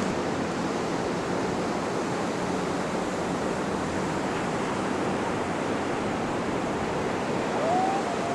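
Ocean surf washing onto the beach: a steady, even wash of noise.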